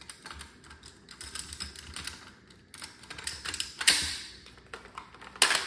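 Metal clicking and sliding of a Colt AR-15 A2 HBAR's bolt carrier group and charging handle being fitted back into the upper receiver during reassembly, with two sharp metallic clacks about four seconds in and near the end.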